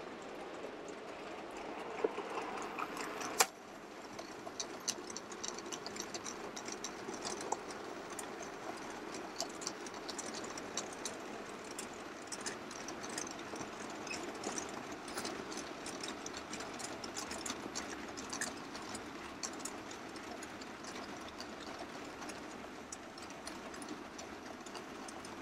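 Model freight train running past: a steady electric-motor hum with the rapid clicking of many small four-wheel tank and mineral wagons rolling over rail joints and points, and one sharper click a few seconds in.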